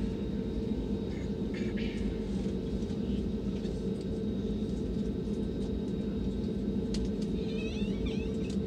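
Steady cabin rumble of an easyJet Airbus A320 taxiing, its jet engines running at low thrust with two steady low hums over the rumble.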